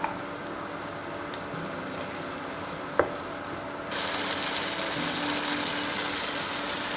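Onion-tomato masala thinned with water, simmering and sizzling in a frying pan as the water boils down. A single sharp tap about three seconds in, and about a second later the sizzle turns suddenly louder and hissier.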